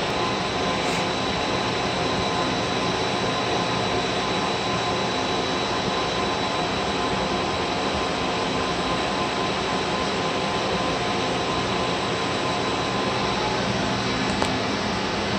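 Steady fan noise: an even rushing hiss with faint steady whining tones that does not change.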